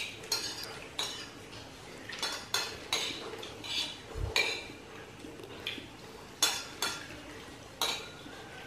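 Metal spoons clinking and scraping against plates and bowls during a meal: about a dozen light, irregular clinks, with a dull thump about four seconds in.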